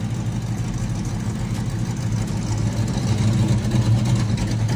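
Car engine idling steadily with a deep, even hum.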